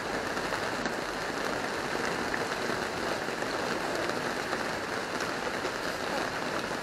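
A steady, even hiss of background noise with no shot and no other distinct event.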